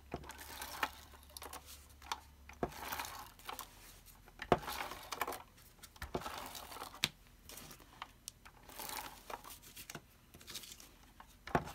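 Scotch ATG 714 adhesive tape gun drawn across card stock in a series of short strokes, laying double-sided tape, with clicks and taps of the gun and card being handled in between.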